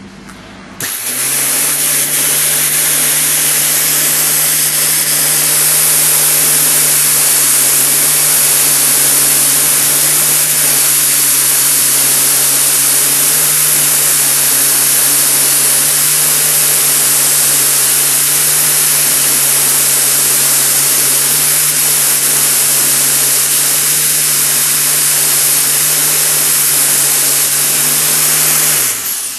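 Angle grinder fitted with a belt-sander (linisher) attachment running, its abrasive belt grinding down a steel door hinge pin with a loud, steady hiss over the motor's hum. It starts about a second in and winds down near the end.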